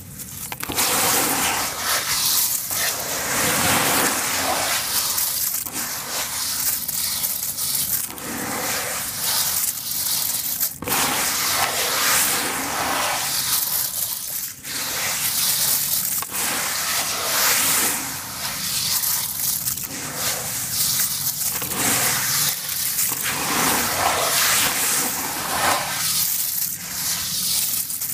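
Hands crushing handfuls of crunchy sand-cement crumble in a basin of water: gritty crunching with grains splashing and pattering into the water. It comes in repeated surges, one squeeze every second or two.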